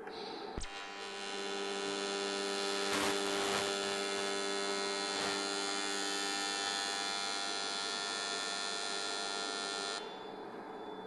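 AC TIG welding arc on cast aluminum, from a Lincoln Invertec V205-T: a sharp crack as the arc strikes about half a second in, then a steady buzz for about nine seconds that cuts off suddenly near the end as the arc is broken.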